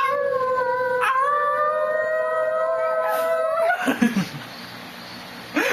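Dog howling in a long, drawn-out cry held on a steady pitch, with a second howl joining about a second in and rising slightly. The howling stops a little under four seconds in.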